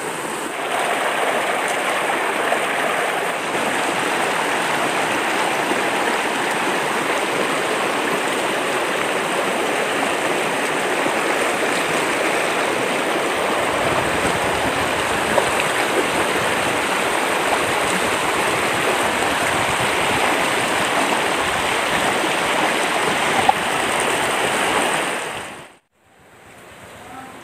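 Shallow rocky stream rushing and splashing over boulders: a steady, loud rush of water that cuts off abruptly near the end.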